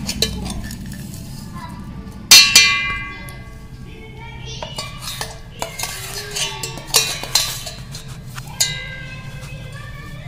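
Clinks and knocks of a mixer jar and a steel spoon against a bowl as ground biscuit powder is emptied in and scraped: one loud ringing clang about two seconds in, then a run of lighter clinks.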